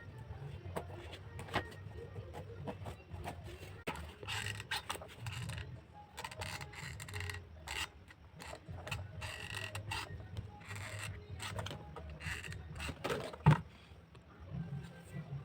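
Hands working on craft materials: scattered clicks and short scraping or rustling sounds, with one sharp knock about thirteen seconds in, over a low steady hum.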